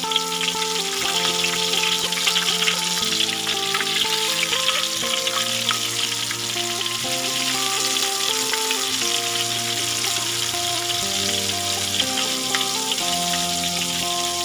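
Flour-coated eel pieces deep-frying in hot oil in a wok, a steady crackling sizzle. A melody of background music plays alongside.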